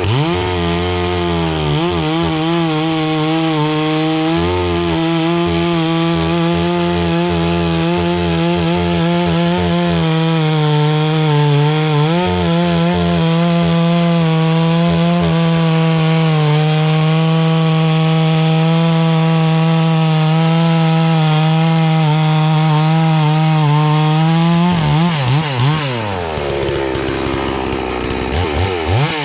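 FarmMac F380W 72cc two-stroke chainsaw held at full throttle and cutting through a poplar log, its pitch dipping slightly now and then under load. About 25 seconds in the throttle is released and the revs fall, followed by a couple of short throttle blips near the end.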